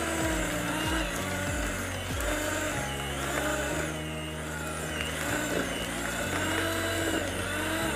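Electric hand mixer running, its beaters churning thick oat cookie dough, over background music with low notes that change in steps.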